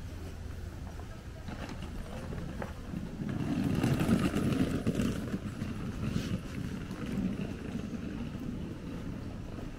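Footsteps and movement of pedestrians walking on a paved street, loudest about four seconds in as one passes close by.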